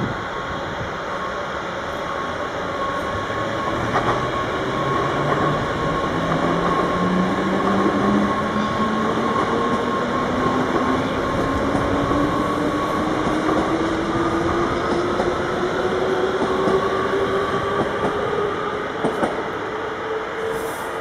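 Sprinter Light Train electric multiple unit pulling away from the platform. Its traction drive gives a whine that rises steadily in pitch as the train gathers speed, over the rolling rumble of the wheels and a steady higher hum.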